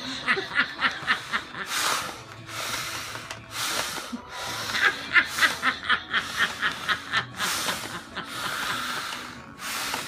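A woman's breathing in a bid to stop hiccups: runs of quick short puffs, about five a second, between longer breaths out.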